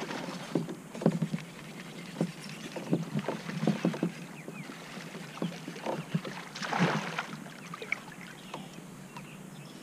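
Water splashing and sloshing at a kayak hull, with irregular knocks and clicks, as a hooked bowfin is fought close to the boat; a longer splash comes about seven seconds in.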